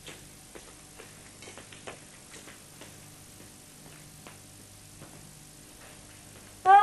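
Quiet stage room tone with a steady low hum and scattered faint ticks. Near the end a voice starts up loudly, humming.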